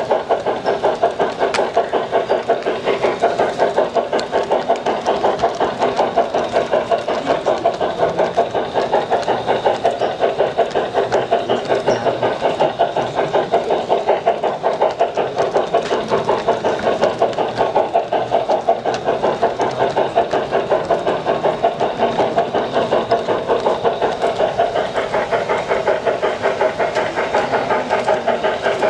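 Model railway train running steadily along its track, heard from a camera riding on it: an even, fast rhythmic clatter of several beats a second that goes on without a break.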